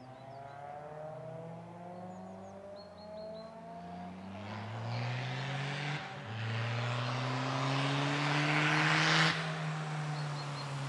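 VW Golf II race car's engine accelerating hard as the car approaches, its pitch climbing, with an upshift about six seconds in, then lifting off suddenly just after nine seconds. Birds chirp faintly near the start.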